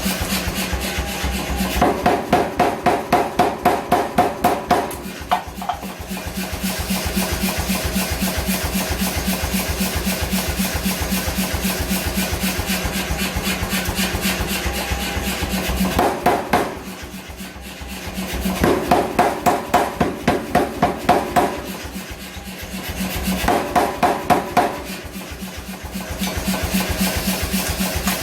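Hand hammer blows on iron in quick rhythmic runs of a few strikes a second, over a steady hum.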